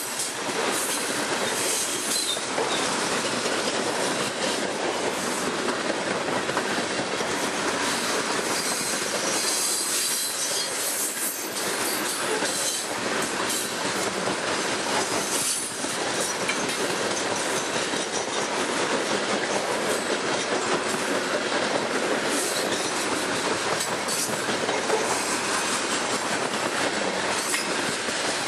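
Coal hopper cars of a long freight train passing at speed close by: a loud, steady rush of steel wheels on rail, with frequent clicks and knocks from the wheels.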